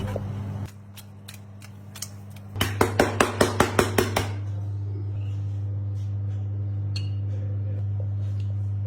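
A kitchen utensil tapping quickly against a pan or bowl, about ten sharp metallic taps in a second and a half, followed by a few faint clinks.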